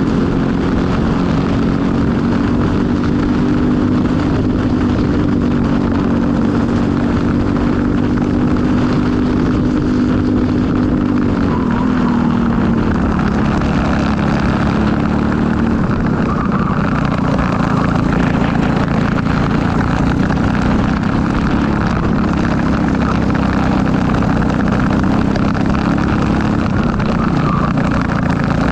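Briggs & Stratton LO206 four-stroke single-cylinder kart engine running under racing load. Its pitch holds steady, drops about twelve seconds in as the kart slows, then rises and falls with the laps.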